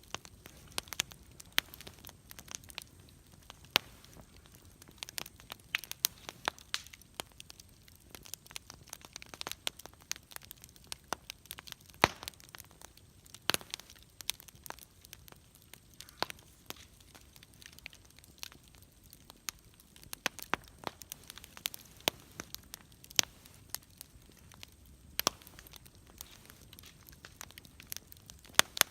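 Wood campfire burning, with irregular sharp pops and crackles over a faint steady hiss.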